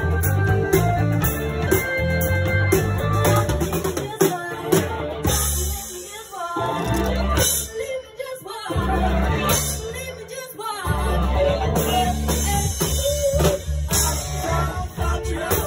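Live band playing a funk-pop number with drums, bass, guitar and some singing. The band cuts out in short stops about six, eight and ten seconds in, then comes back in.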